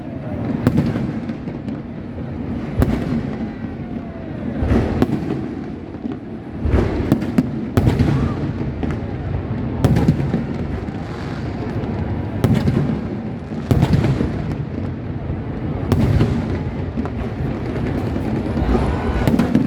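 Fireworks display: aerial shells bursting with sharp bangs roughly every one to two seconds, over a steady rumble of more distant bursts and crackle.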